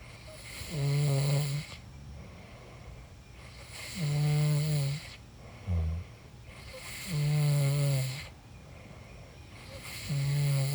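A person snoring in a steady rhythm: four snores, each about a second long, come roughly every three seconds. A short, lower snort falls between the second and third.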